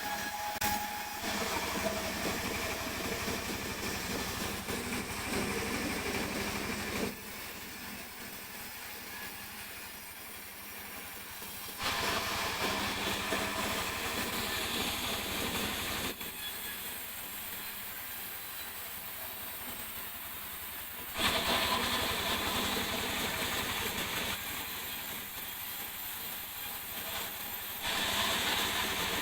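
Sawmill saw running through mahogany, with the machine noise getting louder and quieter in turns every several seconds.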